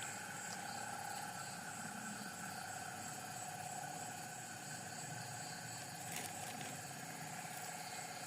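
Steady chorus of night insects trilling, several even high-pitched drones layered together, one lower trill finely pulsing. A faint tick about six seconds in.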